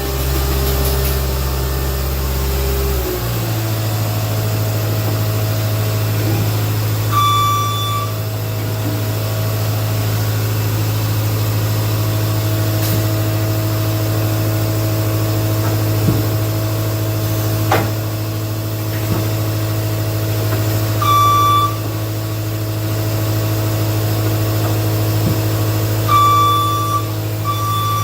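Skid steer engine running steadily, dropping to a lower, steady note about three seconds in. Its reversing alarm beeps in short spells, and there are a couple of sharp metal clanks.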